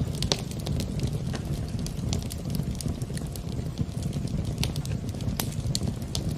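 Wood fire burning in a fireplace, crackling: irregular sharp pops and snaps over a steady low rumble of the flames.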